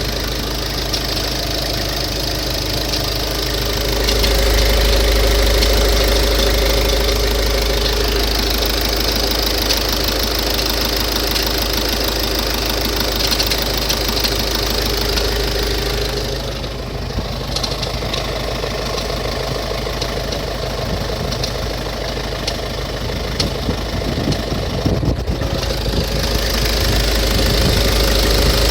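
Volkswagen Touran 1.6 engine idling soon after a cold start with a knocking noise, the strange sound that the owner hears only at idle right after starting the car after it has stood overnight and that fades after a few minutes. Just past the middle the sound turns duller for several seconds, with a few sharp knocks before it comes back fuller.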